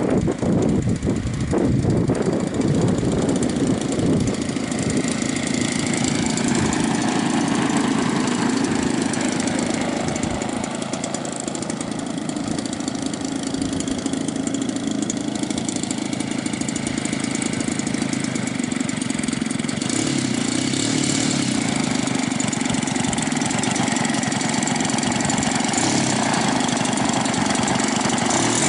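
DLE 55cc single-cylinder two-stroke petrol engine of a 30% scale RC Sbach 300 idling as the plane taxis, turning a 23x8 wooden propeller. The engine note wavers a little in the first few seconds, then holds steady.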